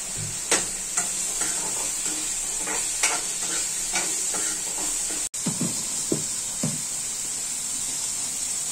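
Potatoes sizzling as they fry in a small wok on a gas stove, with a metal spoon clinking and scraping against the pan as they are stirred.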